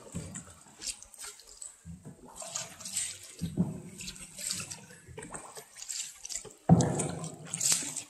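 Water splashing and sloshing around a small boat in repeated surges every second or two, the loudest starting sharply near the end.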